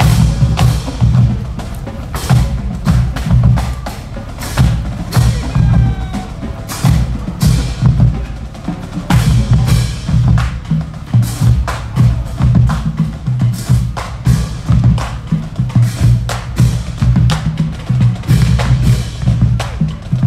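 Marching band drumline playing a cadence: bass drums keeping a steady beat under rapid sharp snare and rim clicks.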